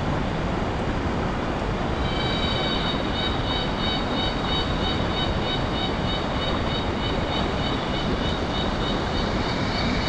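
A fast-flowing rocky river rushing steadily over boulders. About two seconds in, a high pulsing call starts over the water noise and repeats at roughly three pulses a second.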